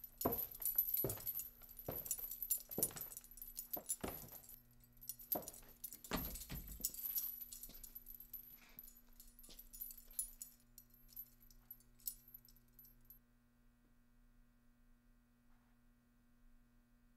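A slow series of knocks with a metallic jingle, about one a second, over a steady low hum. The knocks fade and stop about 13 seconds in, leaving only the hum.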